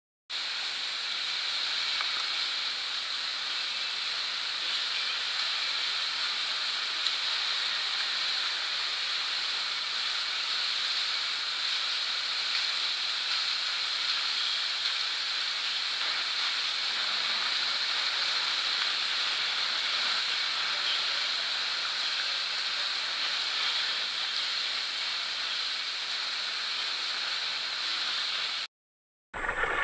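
Indoor swimming-pool noise: a steady, even wash of splashing water from swimmers doing freestyle, cutting off suddenly near the end.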